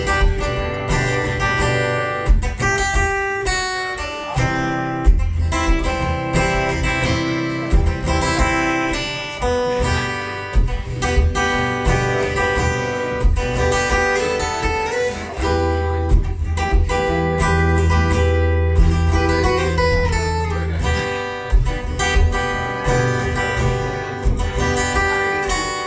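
Acoustic guitar played solo in an instrumental break, chords strummed in a steady rhythm with no singing.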